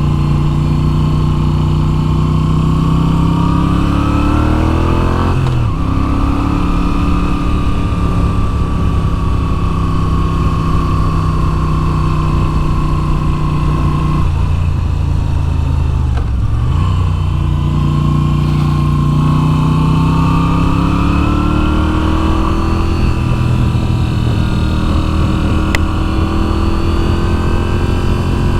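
2022 Moto Guzzi V7's air-cooled V-twin engine under way: the revs climb, break sharply at a gear change about five seconds in, hold steady, fall away about fourteen seconds in, then climb again before settling.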